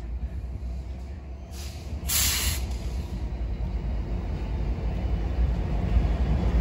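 Diesel engines of Union Pacific freight locomotives rumbling as the train approaches and passes, getting steadily louder. A short burst of hiss comes about two seconds in.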